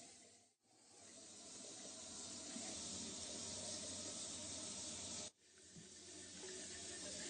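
Tap water running into a bathroom sink as a steady hiss, for lathering and rinsing during face washing. It cuts out abruptly about five seconds in and then starts again.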